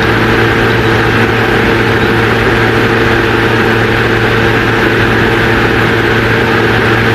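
Victor HR-S10 portable video cassette recorder playing back a videotape: a steady, unchanging hum with hiss over it.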